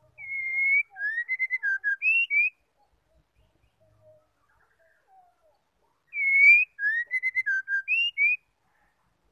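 Female white-rumped shama (murai batu) singing the same short whistled phrase twice, about four seconds apart: a long held note followed by a quick run of rising and falling notes.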